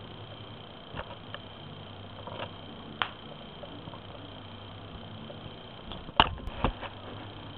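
A playing kitten makes a few scattered sharp taps and clicks, with the loudest pair coming about six seconds in.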